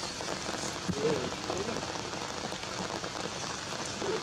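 Steady, even hiss, with a faint short pitched call about a second in and another near the end.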